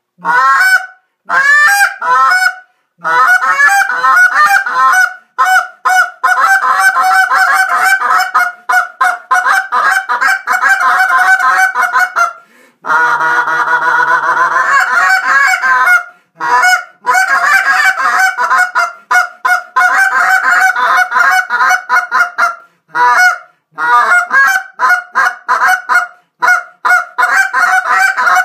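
Carlson short-reed goose call blown hard and fast: runs of quick, sharp honks and clucks, broken about 13 seconds in by an unbroken stretch of about three seconds, then more rapid clucking with short pauses between runs.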